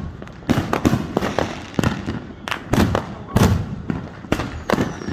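Fireworks going off in quick succession: about a dozen sharp bangs, some with a deep boom, two or three a second.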